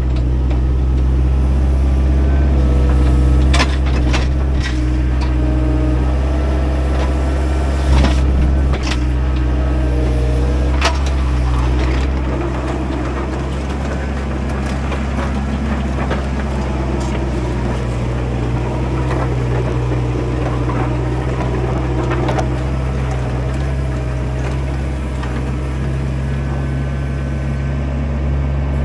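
Excavator's diesel engine running steadily under changing load, with a hydraulic whine that drifts up and down. A few sharp knocks come in the first dozen seconds as it digs.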